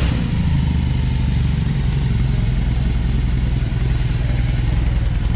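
BMW R18's 1802 cc oil/air-cooled boxer twin idling steadily, a deep, even low pulse, having just fired up.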